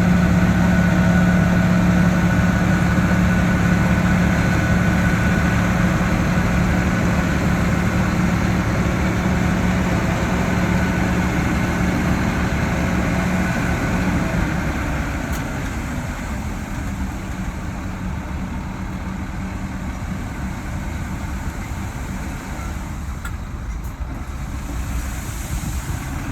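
Heavy diesel engine of construction machinery running steadily. A strong low hum drops away about halfway through, and the sound gradually fades.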